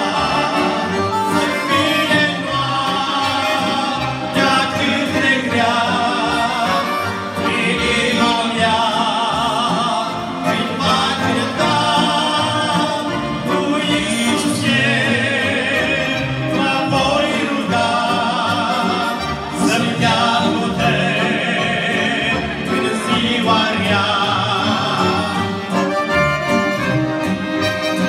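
Men singing a Romanian hymn with vibrato, accompanied by two piano accordions.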